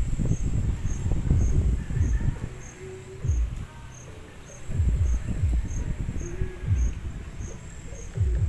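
An insect chirping steadily, a short high pulse about twice a second, under gusts of low wind rumble on the microphone that swell and drop.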